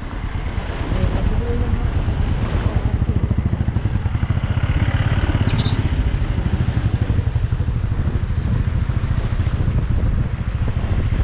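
Royal Enfield Bullet's single-cylinder engine running steadily at low speed on a rough, wet gravel road, with wind noise on the helmet microphone.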